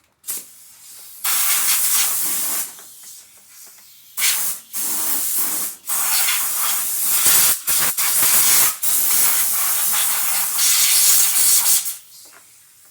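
Compressed-air blow gun blasting dust and dirt off a chipper shredder, in a series of hissing blasts of different lengths: a long one about a second in, short ones around four to six seconds in, and a long, broken run from about six seconds to near the end.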